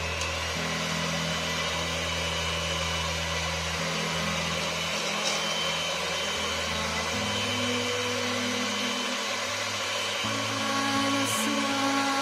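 Electric hand mixer running steadily, its beaters whisking eggs in a bowl, over background music.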